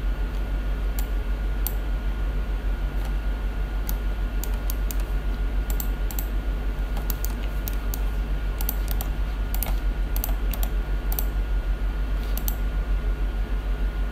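Computer keyboard keys tapped in short irregular runs, stopping about a second and a half before the end, over a steady low hum.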